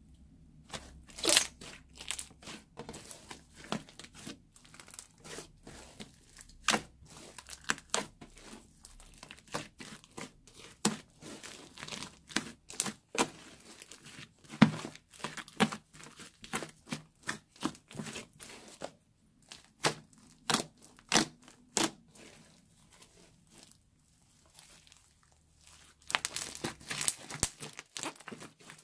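Fluffy slime studded with foam beads being stretched, squeezed and kneaded by hand: irregular sticky pops and tearing crackles as it pulls apart. There is a quiet pause about two-thirds of the way through, then a dense run of crackling near the end.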